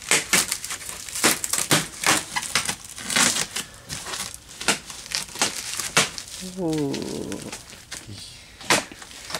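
Packing material being crinkled and pulled apart by hand during unpacking, in a string of irregular crackles and rustles.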